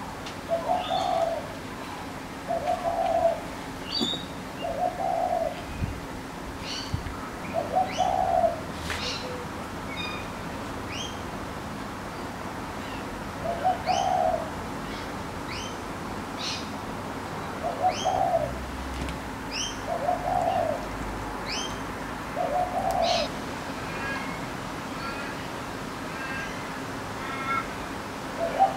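A dove cooing in short phrases every few seconds, with small birds giving quick high rising chirps over a faint steady hum.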